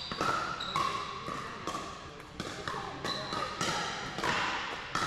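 Pickleball paddles striking plastic balls again and again across several courts, each hit a sharp pock with a short ringing tail, about a dozen hits in five seconds, echoing in a large gym.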